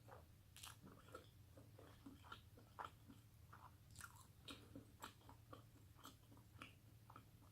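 Faint chewing while eating: soft, irregular small clicks and crunches of a mouthful of food being chewed close to the microphone.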